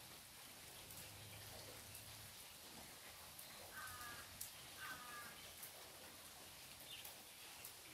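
Faint patter of rain and drips falling through trees. Two short harsh bird calls about a second apart near the middle.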